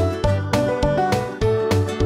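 Background music with a steady beat, about two a second, under a melody of short notes.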